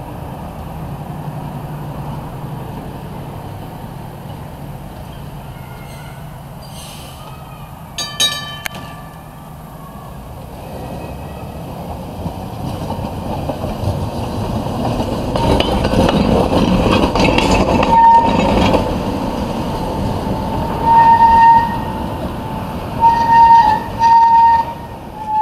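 Historic electric streetcar passing close on its rails, its wheels and running gear rumbling loudest a little past the middle. It then sounds several short, steady horn toots near the end. A brief ringing clang comes about eight seconds in.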